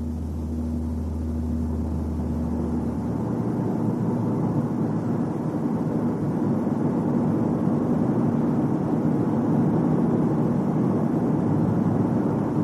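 A car driving on a test drive, its road and running noise heard from inside the cabin and growing gradually louder as it gathers speed. A low hum underneath drops away about three seconds in.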